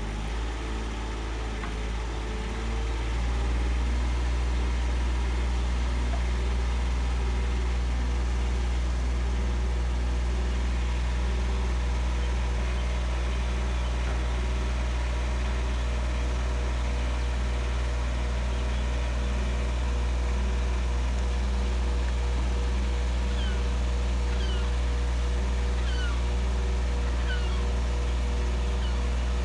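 Truck engine running steadily, its speed coming up over the first few seconds and then holding, with a steady whine over the engine hum. A few faint short chirps near the end.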